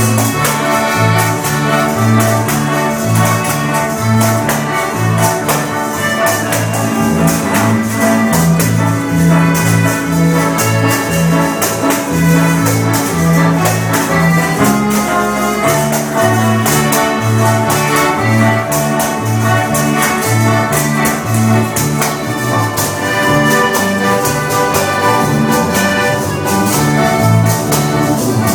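Small live band playing a lively polka: accordion melody over a bouncing bass line that alternates between two notes, with tambourines jingling along to the beat.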